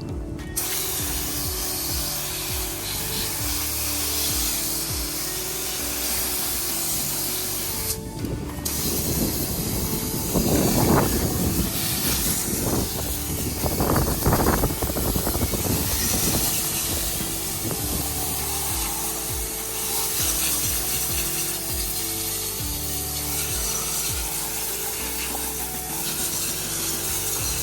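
Steady hiss of spray washing down a Honda D16 engine during degreasing, with rough scrubbing noises twice around the middle, over background music.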